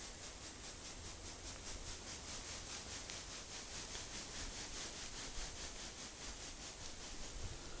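Faint rhythmic rubbing, about five strokes a second, from an ice-fishing rod being jigged in steady quick strokes.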